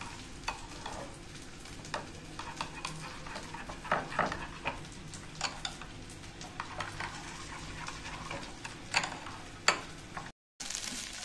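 Metal spoon stirring yogurt and ground spices in a bowl, with irregular clicks and scrapes of the spoon against the bowl. Near the end the sound cuts out briefly and gives way to frying sizzle.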